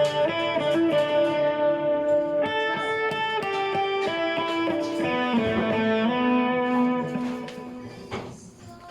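Electric guitar played through a Boss GT-6 multi-effects processor with chorus and single delay switched on: a slow melodic line of held single notes that fades away near the end.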